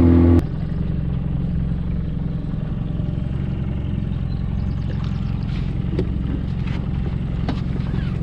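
Small outboard motor on a skiff, running loud at speed for a moment, then cut suddenly to a steady idle. From about five seconds in, a few light knocks and clatter come as the crab-pot line is pulled in by hand.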